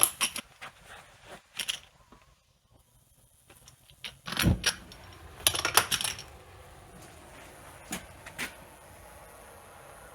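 Metal clinks and knocks of a torch and tools being handled, with a low thump about four and a half seconds in. After that comes a steady faint hiss, fitting a torch burning as it starts to heat the cast-iron wheel.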